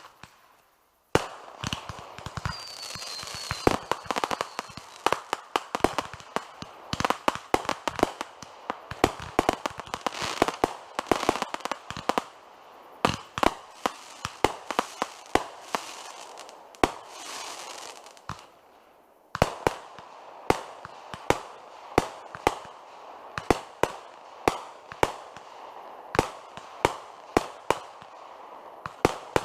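Consumer fireworks going off: rapid sharp bangs and pops over continuous crackling. It starts about a second in, thins out briefly about two-thirds of the way through, then resumes with steady popping.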